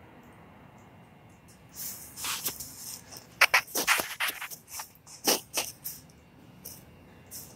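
Irregular scuffing footsteps and shoe scrapes on a concrete floor: a cluster of short, sharp scrapes starting about two seconds in and dying away about two seconds before the end.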